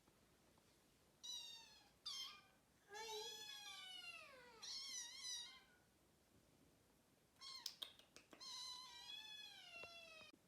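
Young foster kittens meowing, about five high-pitched, wavering calls in quick succession with a pause in the middle. A few sharp clicks come just before the last call, about seven and a half seconds in.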